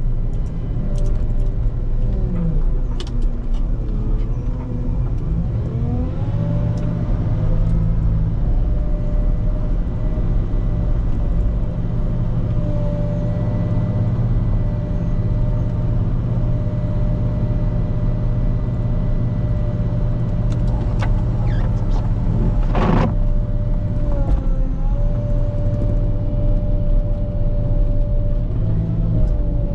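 Volvo L90H wheel loader's diesel engine running steadily under load while plowing snow, with a whining tone that rises and falls at times and a single sharp knock about three quarters of the way through.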